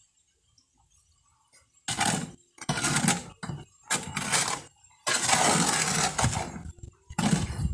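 Mason's trowel scraping and turning wet sand-and-cement mortar in a mixing tub. After a near-silent start comes a run of gritty scraping strokes, the longest near the end.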